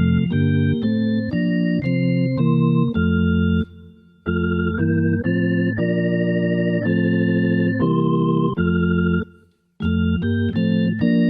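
Organ tone on a Casio AiX-sound electronic keyboard playing a run of sustained chords that change about every half second. The sound cuts off abruptly twice, about a third of the way in and near the end, then resumes.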